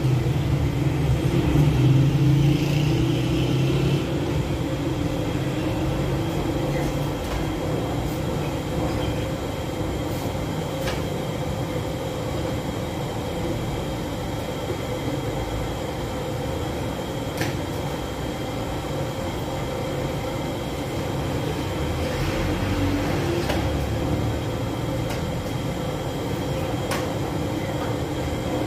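Steady rushing rumble of a gas-fired bread oven (gas tandoor) burning, louder with a low hum for the first few seconds, then even. A few sharp clicks stand out, about three times.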